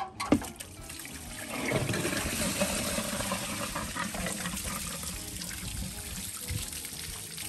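Old coolant pouring out of a Toyota Land Cruiser FJ45's radiator through the disconnected bottom hose outlet and splashing onto the ground. It runs steadily from about two seconds in, after a couple of short knocks at the start as the hose comes off.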